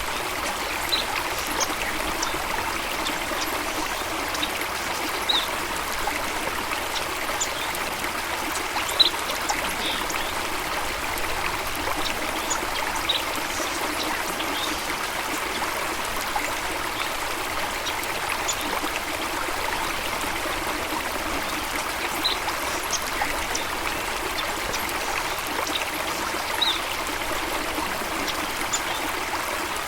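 Running stream water: a steady, even rush and trickle, with scattered brief high ticks over the top.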